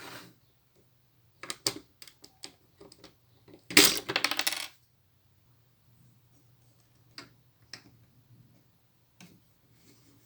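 Small plastic Lego pieces clicking and rattling. About four seconds in comes a second-long burst of many pieces clattering together, with a few single clicks before and after.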